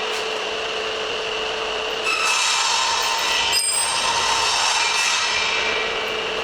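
A belt sander with an inflatable drum, its 1.5 kW motor running with a steady hum, while wood is rubbed against the moving sanding belt in a continuous rasp. The rasping grows louder about two seconds in and eases off near the end.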